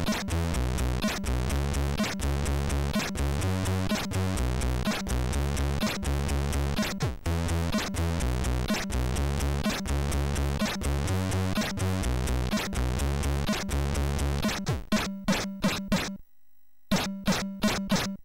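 Commodore 64 SID chip music: a chiptune with a repeating bass line and regular noise-channel drum hits. About fifteen seconds in it breaks into a run of short, sharp stabs with a brief pause, and it cuts off just before the end.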